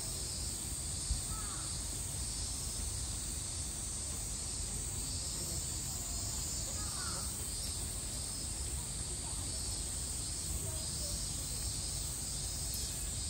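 Outdoor summer ambience: a steady high-pitched chorus of cicadas pulsing evenly over a low background rumble, with a couple of faint short calls, one about a second and a half in and another about seven seconds in.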